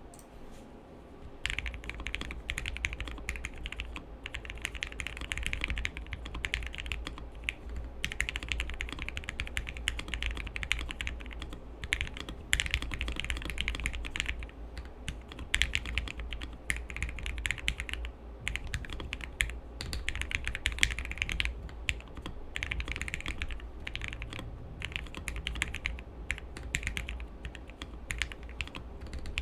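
Continuous typing on an MW65 gasket-mounted acrylic-stack mechanical keyboard with lubed linear Gateron Yellow switches, a polycarbonate plate and dye-sub keycaps: dense runs of keystroke clacks with short pauses, starting about a second and a half in.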